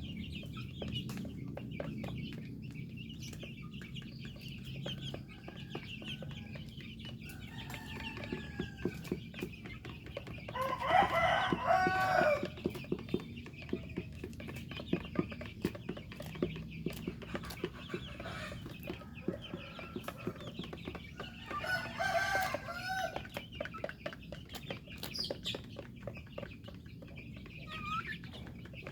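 Chickens clucking, with a rooster crowing twice, once about ten seconds in and again about twenty-two seconds in, over many light clicks.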